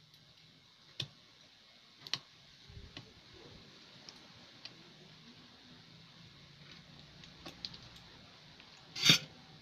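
Soldering work on a CRT TV circuit board: light sharp ticks and clicks about once a second as the soldering iron tip and component leads tap the board, with one much louder sharp clack near the end.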